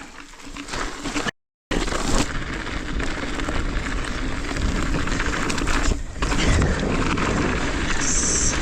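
Mountain bike riding along a dirt trail, giving a steady noise, which cuts out completely for a moment about a second in.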